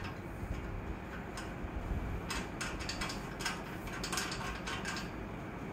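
A quick run of light clicks and ticks, from about two seconds in to about five, as a bolt is fitted and turned by hand into the steel upright of a treadmill frame during assembly.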